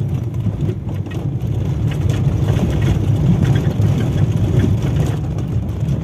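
A car driving slowly over a rough dirt track, heard from inside the cabin: a steady low engine and road drone that grows a little louder about two seconds in.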